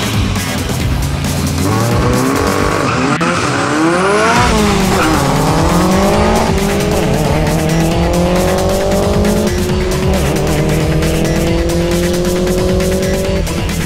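Car engine revving hard with tyre squeal, then accelerating away, its pitch climbing through gear changes with two drops in pitch, before cutting off near the end. Music with a stepping bass line plays underneath.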